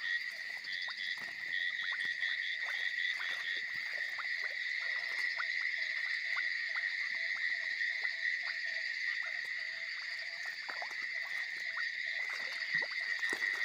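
Night chorus of many frogs calling over one another, short repeated calls overlapping without pause, over a steady high-pitched insect trill.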